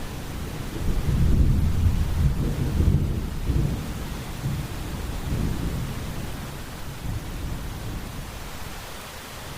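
Steady rain hiss with a long, deep roll of thunder, loudest in the first few seconds and slowly fading out by the end.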